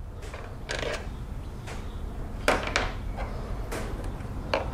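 A handful of sharp, separate clicks and knocks as tools and hands work on the plastic air filter housing and its bolts, over a steady low hum.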